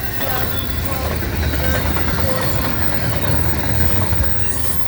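Double-stack intermodal freight train rolling past at about 65 mph: a loud, steady low rumble with wheel clatter from the passing cars.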